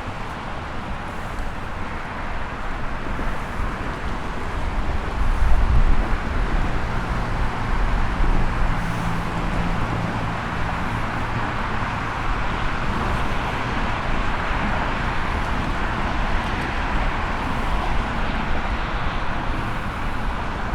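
Steady road traffic noise, with a low rumble from a passing motor vehicle swelling about five to six seconds in and a low engine hum lingering for a few seconds after.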